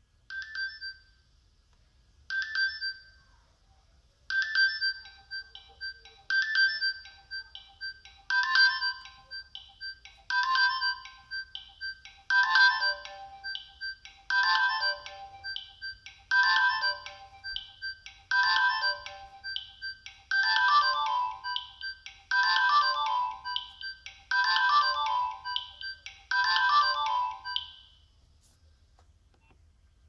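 Nokia 6070 playing one of its built-in polyphonic ringtones through its loudspeaker: a short electronic phrase repeating about every two seconds, growing fuller and louder, then stopping about two seconds before the end.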